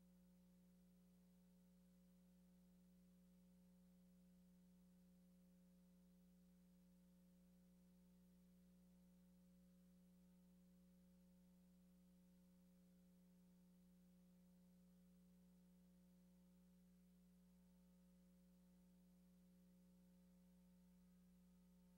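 Near silence, with only a faint steady hum that never changes.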